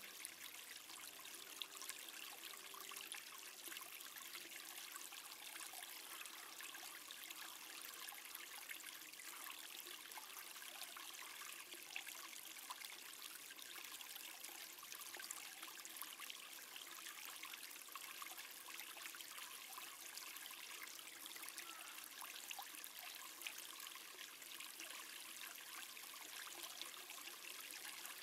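Faint, steady outdoor background hiss with scattered soft ticks.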